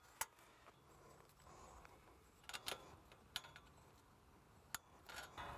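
Near silence with a handful of faint, sharp clicks of pliers and tension wire being bent and fastened at a chain link fence post.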